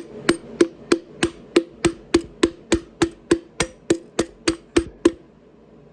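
Hammer blows on a wooden block, driving a seized piston out of a frozen engine's cylinder: a steady run of sharp strikes, about three a second, each with a short ring, stopping about five seconds in.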